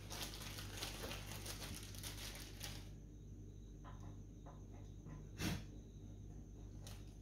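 Clear plastic bag of sump bolts crinkling for about three seconds as bolts are picked from it, then a few light clicks, the loudest about five and a half seconds in, as bolts are set into the sump's holes. A steady low hum runs underneath.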